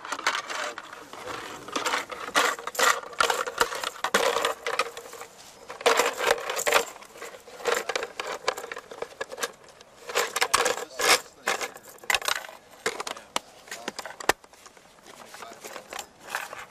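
A belt of linked 5.56 mm cartridges clinking and rattling as it is lowered into the belt box of a light machine gun, coming in bursts of metallic clinks with short pauses between them.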